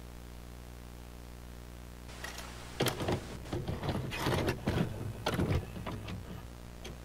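Videocassette recorder mechanism clicking, clunking and whirring as the tape is stopped and set to play, a dense run of mechanical clicks and knocks starting about two seconds in and ending about six seconds in. A steady low hum runs underneath.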